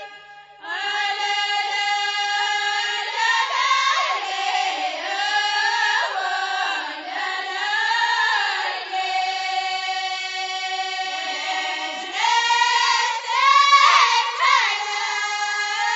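Ahwach group singing: massed voices hold a long steady note while other voices sing gliding melodic phrases over it. The singing breaks off for about half a second at the start, and the voices swell loudest near the end.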